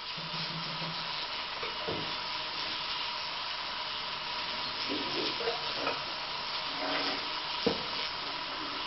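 Small LEGO trains running on plastic track: a steady hiss-like whir of the train motors and wheels, with a few light clicks and one sharper click near the end.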